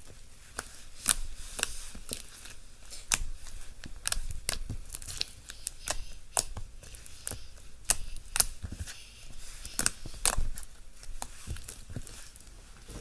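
Slime being squished and stretched by hand, giving an irregular run of sharp wet clicks and pops, a few a second.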